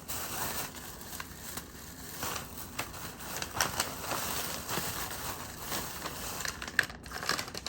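Medicine packaging crinkling and rustling as it is handled, with short sharp crackles throughout.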